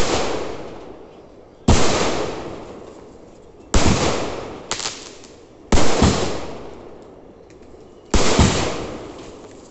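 Aerial fireworks bursting overhead: about five sharp bangs, roughly two seconds apart, each trailing off in a fading tail, with one smaller pop a second after the third.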